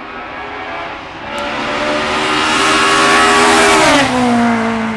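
Rally car engine at high revs growing louder as it approaches, the engine note dropping sharply about four seconds in.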